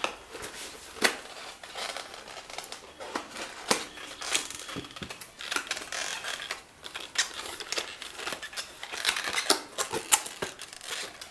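Cardboard box and packing being handled and searched through by hand: rustling with many small clicks and taps scattered throughout.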